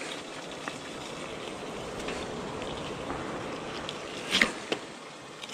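Filleting knife slicing along a fish on a wooden board, a soft crackling scrape with a few small clicks and a louder scrape about four seconds in.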